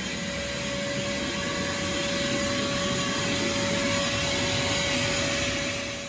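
Wet/dry vacuum running with a steady whine, sucking out the air conditioner's condensate drain line.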